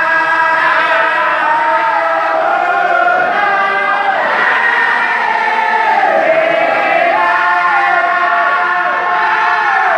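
A large group of men chanting together in unison, a Sufi dhikr of the daïra kind, with long held notes that slide down in pitch.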